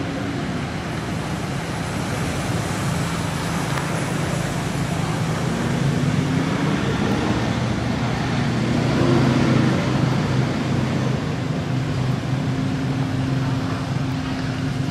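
A motor vehicle's engine running steadily as a low hum, its pitch rising a little and falling back around the middle, over broad outdoor traffic noise.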